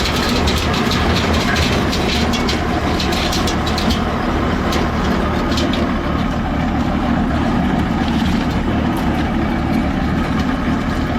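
1948 Allis-Chalmers C tractor's four-cylinder engine running steadily under belt load, driving a feed grinder, with a rapid crackling clatter of dried corn being ground. The crackling is densest in the first five seconds and thins out after.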